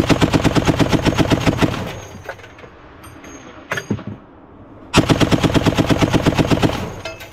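M2 .50 cal heavy machine gun firing two bursts of about two seconds each, roughly three seconds apart, at about eight rounds a second.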